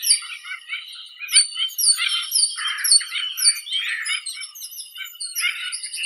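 Several small birds singing and chirping together: a dense, overlapping run of short, high, quickly falling notes.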